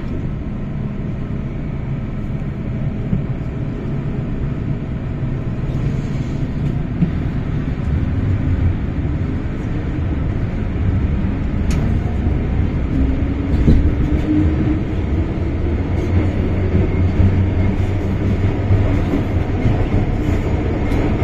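MTR Island Line M-Train pulling out of a station, heard from inside the car: a steady running rumble that grows heavier as the train gets under way, with a motor whine that rises slowly in pitch as it picks up speed in the second half.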